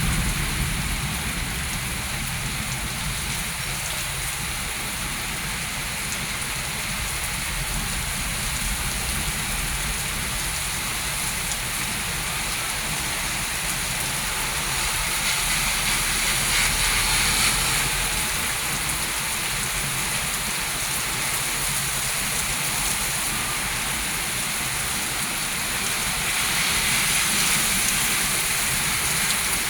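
Heavy rain falling steadily, a continuous hiss that swells louder twice, around the middle and near the end.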